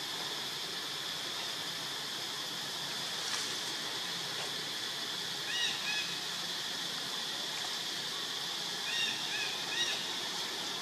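Steady high drone of forest insects, with a few short, high, squeaky animal calls: two about halfway through and a quick run of three near the end.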